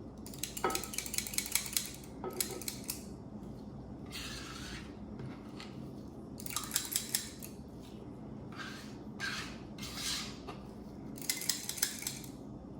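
Spoon clicking against dishes while sour cream is scooped out and spread, in three short runs of rapid clicks with softer scraping between.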